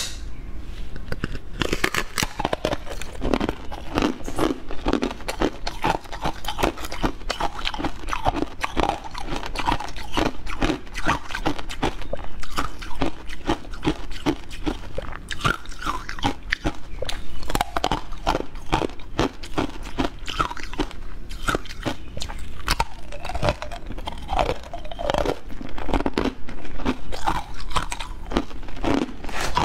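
A person biting and chewing a crunchy pineapple-shaped snack: many quick crunches in close succession, with mouth sounds between them.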